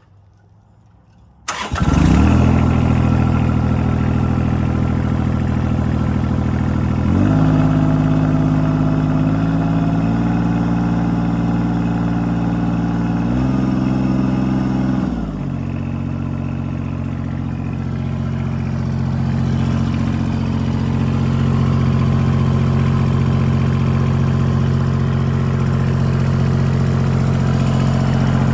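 Kubota L2800 compact tractor's three-cylinder diesel cranked and started about a second and a half in, then running. The throttle is raised about 7 s in and again near 13 s, up to about 2,700 rpm, then brought back down around 15 s to a steady lower speed.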